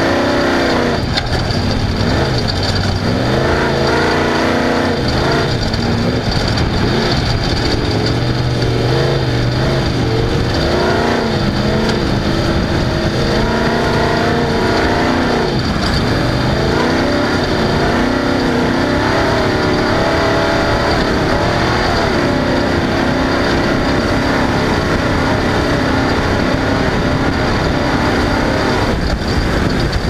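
Off-road race car engine running hard at speed on a dirt track, its revs rising and falling again and again over a steady rush of wind and road noise, heard from on board the car.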